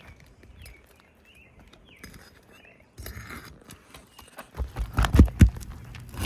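A scrape, then a quick cluster of loud knocks and thumps as a pry bar works a roofing nail loose from under a 3-tab asphalt shingle.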